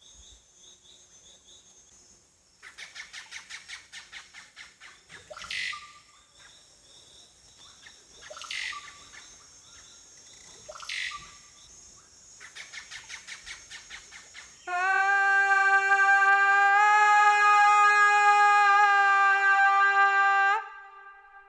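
Amazon rainforest sounds: birds give loud falling whistles every few seconds over fast insect-like trills. About two-thirds of the way in, a loud steady drone rich in overtones sets in and holds for about six seconds before cutting off suddenly.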